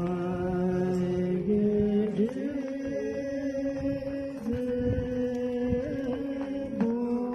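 A man's low voice chanting a slow Buddhist prayer in long held notes, stepping between a few pitches.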